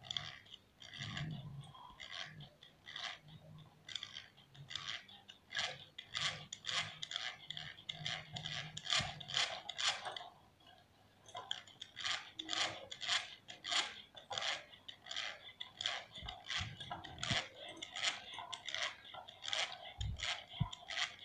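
Wire whisk beating eggs in a stainless steel bowl: a steady rhythm of scraping strokes, about two a second, with the metal whisk rubbing against the bowl. The strokes stop briefly about ten seconds in, then pick up again.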